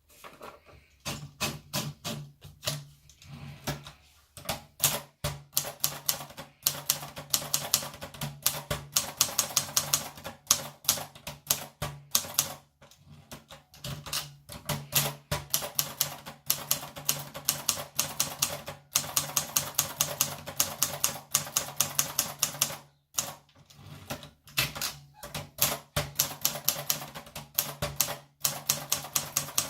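Torpedo typewriter being typed on, with sharp key strikes at about five a second in quick runs broken by short pauses.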